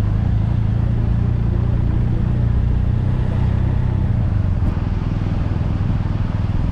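Motorcycle engine running steadily at low speed, heard from on board the bike, its low note easing off a little about two-thirds of the way through.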